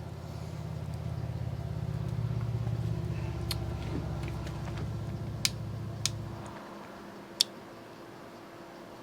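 A low rumbling hum that swells and then cuts off abruptly about six and a half seconds in, with four small sharp clicks, typical of parts being handled while wiring an electrical outlet.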